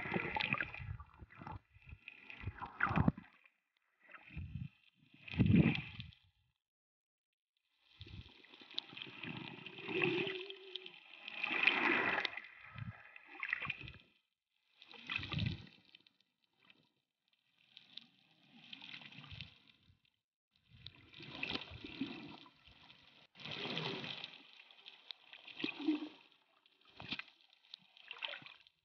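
Water noise picked up by a submerged waterproof compact camera: muffled sloshing and gurgling in irregular bursts of a second or two, with short silent gaps between them.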